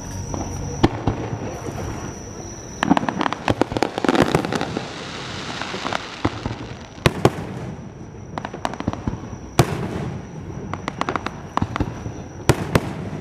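Fireworks bursting: a string of sharp bangs, with a dense crackling stretch a few seconds in and single loud bangs near the middle and near the end.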